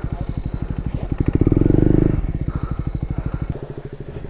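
Motorcycle engine running at low revs with an even putter. It is revved louder for about a second in the middle, then eases back down.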